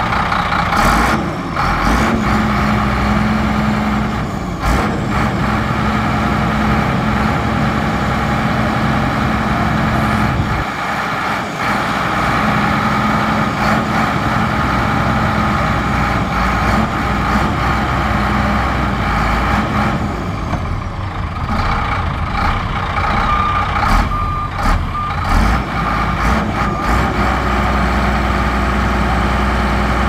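Heavy diesel earthmoving machinery running steadily under load, with a back-up alarm beeping over the engine.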